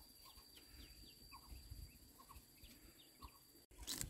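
Faint peeping of ducklings: short, falling cheeps a few times a second, over a thin steady high whine. A brief louder rustling burst comes near the end.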